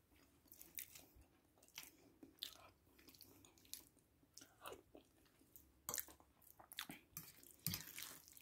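Faint chewing of soft food close to the microphone: irregular short clicks, several a second.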